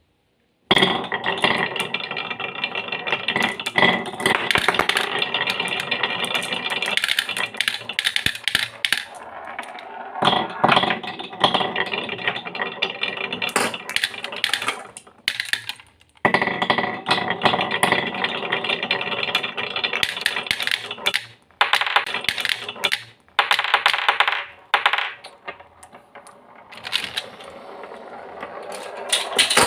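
Marbles rolling and clattering down a HABA marble run in a dense stream of fast clicks and rattles, breaking off briefly about halfway.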